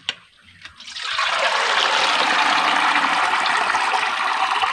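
Rinse water draining through the holes of a perforated steel colander and splashing into a bowl of water below, a steady pour that starts about a second in after a brief click.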